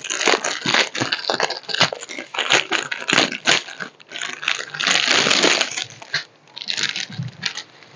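Plastic packets of diamond painting drills crinkling and rustling as they are handled, in a run of irregular crackles. The longest, loudest rustle comes about five seconds in, and it is quieter and more broken near the end.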